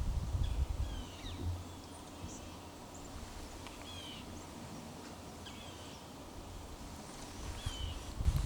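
Short, chirping bird calls, about five quick bending notes spaced a second or two apart, over a quiet woodland hush. A low rumble sits under the first second and returns near the end.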